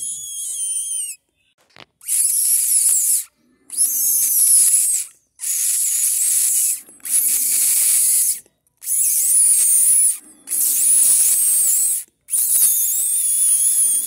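A person imitating a mink's squeal by sucking air in through the teeth held on the bitten lower lip. About seven high, hissy squeaks with a wavering pitch, each a little over a second long, come one after another with short gaps.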